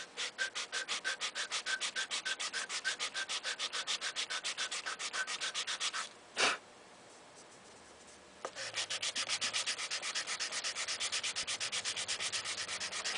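Hand sanding block rubbed in quick, even back-and-forth strokes over the squared-off cut in a wooden shotgun butt stock. The strokes stop about six seconds in, with one louder single swipe, then resume about two seconds later.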